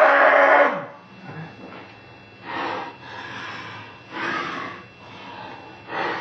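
Slowed-down screaming from a boy that stops about a second in, followed by three deep, drawn-out breaths, each about a second and a half apart.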